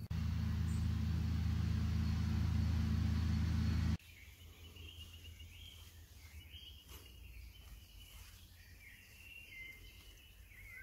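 A loud, steady low rumble with a hiss over it, cutting off abruptly about four seconds in. After that, faint birdsong in quiet woodland.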